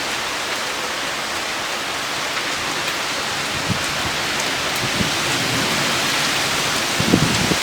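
Heavy rain pouring down steadily during a thunderstorm, with a few dull knocks of drops striking something, the loudest near the end.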